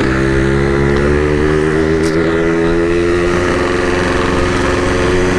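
Yamaha RX-King's two-stroke single-cylinder engine running at a steady, nearly constant speed under way through its side-mounted exhaust. The rider says the carburettor setting is off from trial jetting, so the bike bogs and won't pull.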